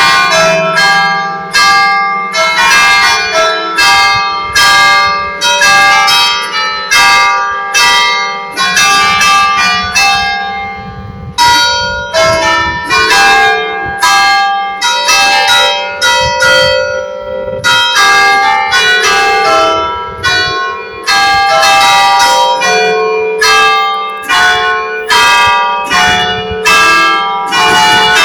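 Church bells pealing: several bells of different pitch struck one after another, roughly once a second, each ringing on into the next over a steady low hum. The strikes pause briefly twice.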